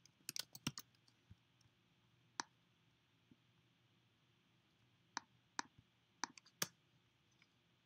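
Scattered computer mouse clicks against faint room tone: a quick run of clicks at the start, a couple of single ones, then another run about five seconds in.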